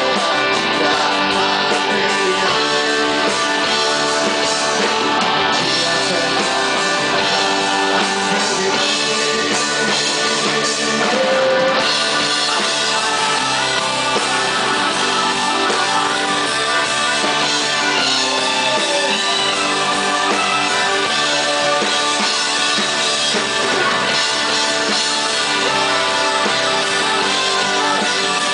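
A live rock band playing: electric guitars, bass guitar and drums at a steady, loud level.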